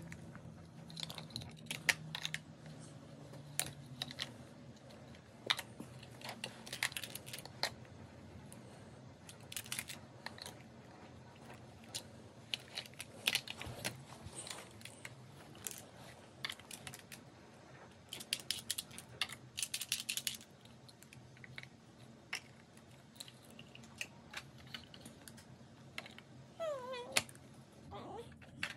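Large plastic Mega Bloks toy blocks clicking and clattering as a toddler handles and stacks them: irregular light knocks, with a quick run of clicks about two-thirds of the way through.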